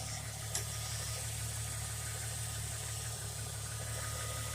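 SN95 Ford Mustang engine idling steadily and smoothly, without rocking. A single light click sounds about half a second in.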